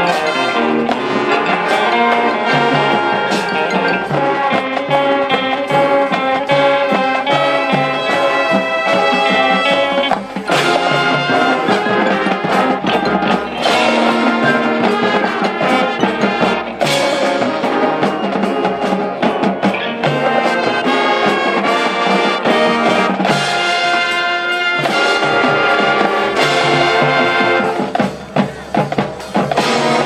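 Marching band playing, brass winds and percussion loud and continuous, breaking into short, separate hits near the end.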